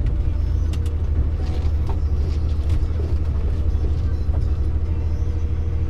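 Lorry engine running with a steady low drone and a few faint clicks over it.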